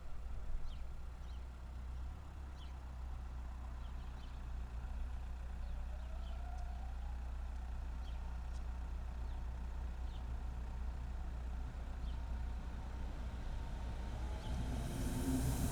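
Steady low rumble of road traffic idling while it waits at a railway level crossing, with faint short high chirps now and then. Near the end, the noise of an approaching suburban train rises quickly.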